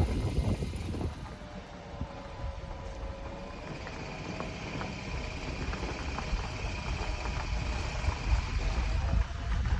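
Volkswagen Golf 7's dry seven-speed DSG drivetrain running, with a steady low rumble, scattered faint knocks and a faint high whine that sets in a few seconds in. The abnormal noise is put down to a worn-out clutch at about 130,000 km.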